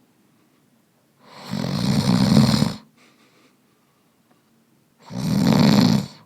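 Snoring: two long snores about three and a half seconds apart, each lasting over a second, with a faint breath between them.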